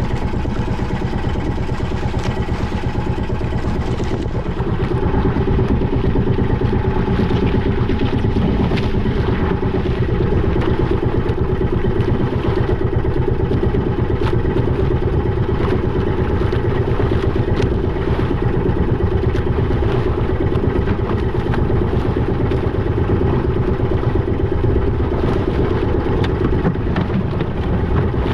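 Boat engine running steadily and loudly, a little louder from about four seconds in.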